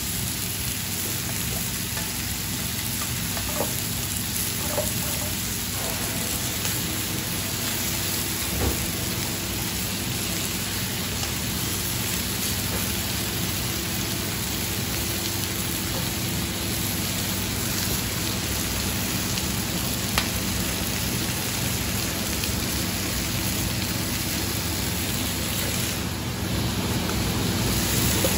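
Chicken thighs sizzling steadily in oil in hot steel frying pans, with a few light clicks scattered through.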